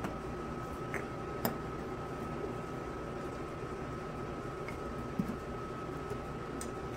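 Steady background hum with a faint high, constant tone, and a few light clicks and taps of a metal spoon against glass spice jars and a wooden bowl as spices are spooned in.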